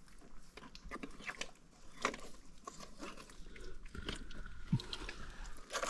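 Thick wet mangrove mud crackling and sucking in short irregular clicks and small knocks as a crab hook and hands dig into a mud crab's burrow.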